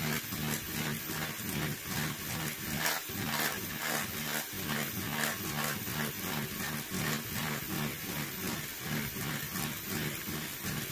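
Bosch electric hand mixer running with its wire whisk beaters churning whipped cream that has broken into butter grains and buttermilk. The motor hums with a pulsing beat and a rhythmic knocking about three times a second.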